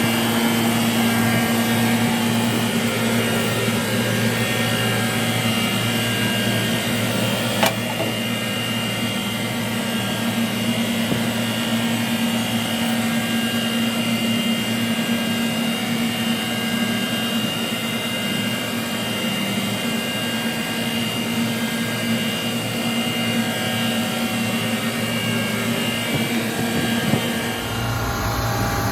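Bitzer reciprocating refrigeration compressors on a parallel rack running steadily: a constant machine hum with a steady high whine. There is a single sharp click about eight seconds in, and the low hum changes just before the end.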